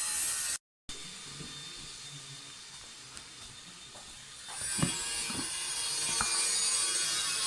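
Steady hissing noise with a few short knocks. It cuts out briefly about half a second in and is louder in the second half.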